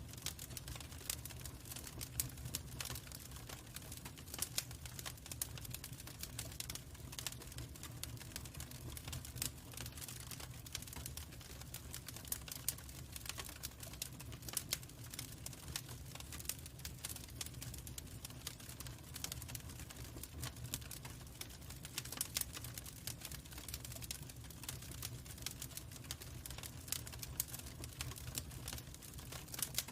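Wood fire crackling with frequent irregular pops and snaps over a steady low rumble.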